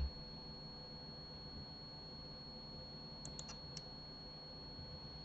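Faint steady background hiss with a thin high whine and a low hum. There is a short low thump right at the start and a quick run of about four faint computer keyboard clicks about three and a half seconds in.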